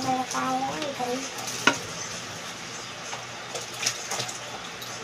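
Water poured from a dipper splashing over plastic containers in a stainless-steel sink as they are rinsed, with one sharp clink nearly two seconds in. A voice is heard in the first second or so.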